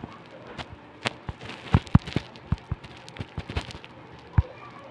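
Irregular sharp clicks and knocks, about a dozen over a few seconds, from a handheld phone being gripped and handled close to its microphone.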